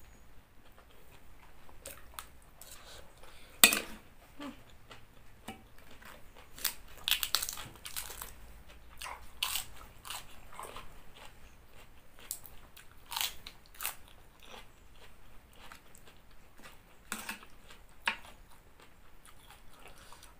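A person chewing and crunching mouthfuls of green papaya salad and lettuce in irregular crisp crunches, the loudest about four seconds in.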